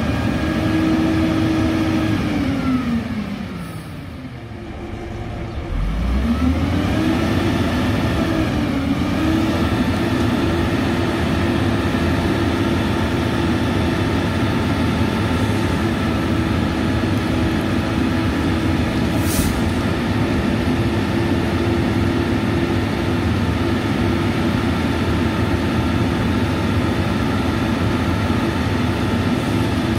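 Old Peterbilt 310 garbage truck's diesel engine revving high while stopped. The revs sag and come back up a few seconds in, then hold steady, as when the engine drives the Amrep side loader's hydraulics. A brief high hiss comes about two-thirds of the way through.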